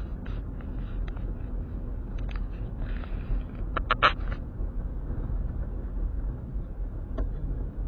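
Car driving, heard from inside the cabin: a steady low rumble of engine and tyres on the road. A few short sharp clicks or knocks come about four seconds in.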